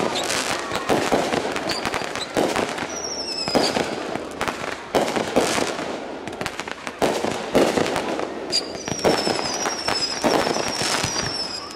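Consumer aerial fireworks firing in rapid succession: repeated sharp bangs of shells bursting. Whistle effects slide down in pitch, briefly about three seconds in and several times from about eight and a half seconds on.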